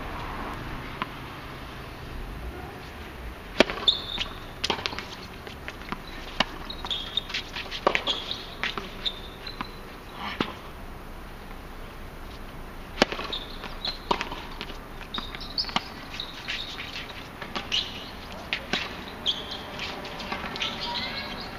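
Tennis rally on a hard court, starting about three and a half seconds in: sharp knocks of the ball off the rackets and the court surface, with short high squeaks of tennis shoes on the court.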